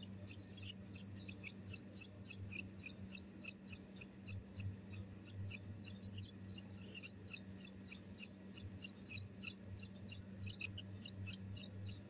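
Bulbul nestlings chirping continuously in the nest: a rapid string of short, high peeps, several a second, with a low steady hum underneath.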